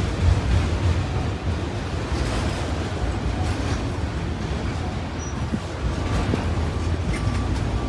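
Autorack freight cars of a passing freight train rolling by: a steady low rumble of steel wheels on the rails.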